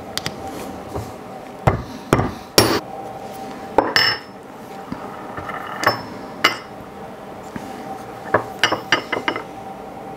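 Hammer tapping the cut post of a copper rivet backed by a steel block: irregular light strikes with a brief metallic ring, then a quick run of several taps near the end. The post is being peened over to smooth down the sharp burr left by the nippers.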